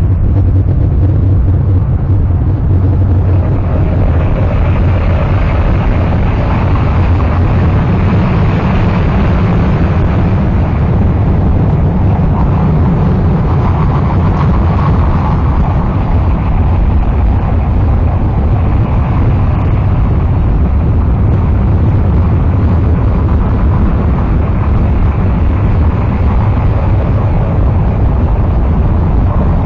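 A loud, unbroken wall of distorted noise, heaviest in a low rumble, swelling slowly in the middle range with no beat or melody: a harsh-noise music track.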